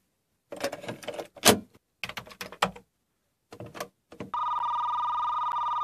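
Commodore Datasette cassette recorder handled: a cassette clatters into the door and the lid clicks shut, with the loudest snap about a second and a half in, then the Play key goes down with a mechanical clunk. About four seconds in, a steady electronic tone with several pitches starts and holds.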